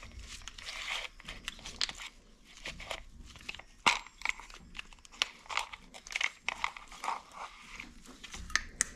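Recoil starter of a rammer being wound up by hand against its spring: irregular small clicks and scrapes of plastic and metal parts being turned and handled.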